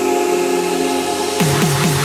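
Electronic dance music from a trance DJ mix: held synth chords, then about a second and a half in a fast run of drum hits, about five a second, starts under a wash of noise as the track builds.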